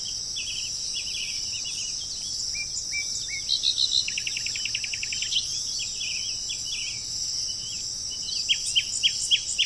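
Wild birds chirping and calling over a steady, high-pitched insect drone, with a fast trill about halfway through and a run of quick falling chirps near the end.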